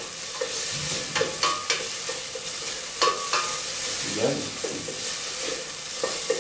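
An aderezo of onion, garlic, tomato and ají colorado paste frying in oil in a stainless steel pot, sizzling steadily while a wooden spoon stirs it, scraping and knocking against the pot several times.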